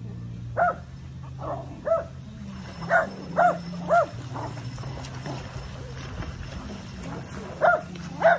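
Small dog giving short, high yips, about eight in all in small bunches, with a steady low hum underneath.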